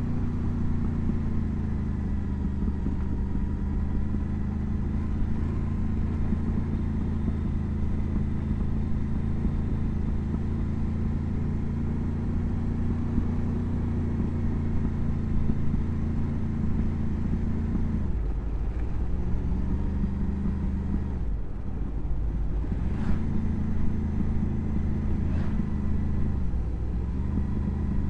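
Motorcycle engine running steadily under way, its note briefly dropping and picking up again three times in the last third.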